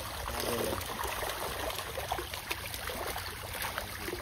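Water trickling and splashing, with many small irregular ticks and a steady low rumble underneath.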